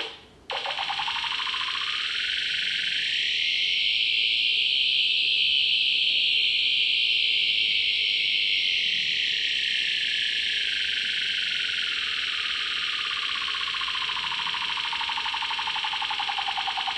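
Pipe Horn 100 utility locator receiver sounding a loud buzzing tone through its speaker as it picks up a swept signal from a function generator on a wire loop. The tone cuts out briefly about half a second in. It then runs on, its tone shifting slowly higher and then lower again as the sweep runs.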